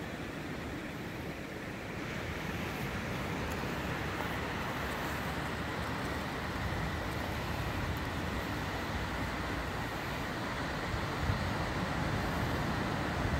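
Sea surf washing steadily onto a pebble shore, with a few light wind buffets on the microphone near the end.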